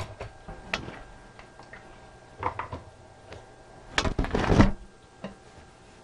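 Brass movement of an antique longcase clock, on its wooden seatboard, being lifted off its dial and set down on a workbench: a few light knocks and clicks, then a louder clatter of wood and metal about four seconds in.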